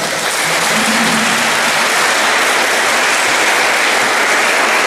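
A crowd applauding: steady, dense clapping right after singing stops.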